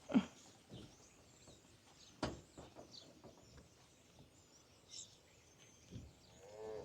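Quiet farm ambience with faint bird chirps, a sharp knock about two seconds in, and a short pitched call just before the end.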